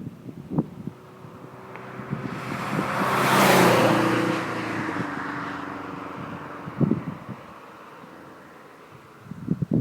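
Scion FR-S with a boxer four-cylinder and aftermarket headers and exhaust driving past, its engine and exhaust note building to a peak about three and a half seconds in, then fading slowly. Short thumps of wind buffeting the microphone come near the start, around seven seconds in, and near the end.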